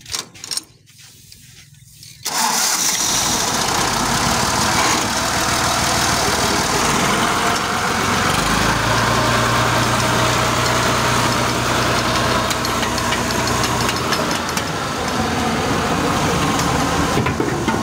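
A tractor's diesel engine starts about two seconds in and then runs steadily, powering a mustard oil expeller. A deeper steady note comes in for several seconds in the middle.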